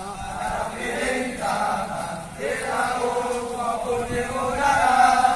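A large group of male police cadets chanting together in unison, many voices in short sung phrases with brief breaks between them.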